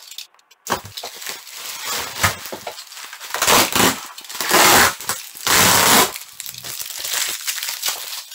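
Plastic bubble wrap crinkling and crackling as it is slit with a utility knife and pulled apart, with three loud surges of rustling in the middle.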